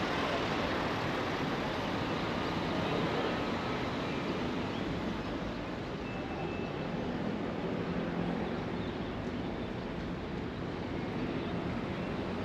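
Steady drone of a tender boat's engine with rushing water and wind on the microphone, a low hum coming through a little more clearly about halfway through.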